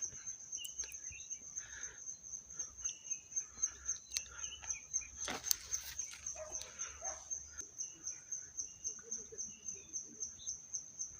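An insect chirping steadily in a high-pitched, even rhythm of about four pulses a second, with faint bird calls around it and one sharp click about five seconds in.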